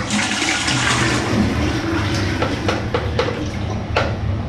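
Toilet flushing: a rush of water, strongest in the first second or two and then easing, with a few short knocks after.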